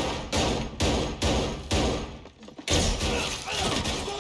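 Gunfire from a film shootout: a series of loud gunshots with echoing tails, about five in the first two seconds, then denser, heavier firing from about two and a half seconds in.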